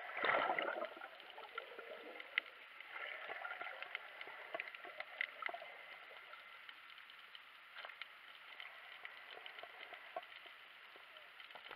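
Underwater sound as picked up by a camera in a waterproof housing. A rush of bubbles and water in the first second, then a faint steady wash of water with scattered small clicks and crackles.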